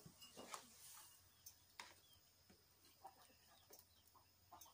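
Near silence, with faint scattered ticks and light clicks.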